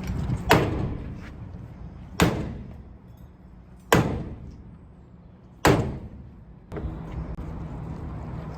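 Sledgehammer blows on a gearbox casing being smashed apart: four heavy strikes about one and a half to two seconds apart, each with a short metallic ring.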